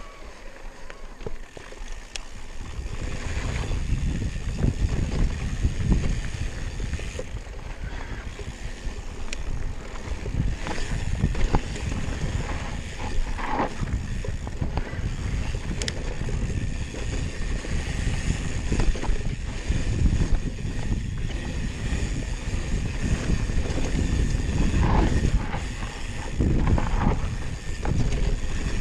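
Wind buffeting an action camera's microphone as an electric mountain bike rolls down a dirt singletrack, with tyre noise and scattered knocks and rattles from the bike over bumps. The wind noise builds about three seconds in.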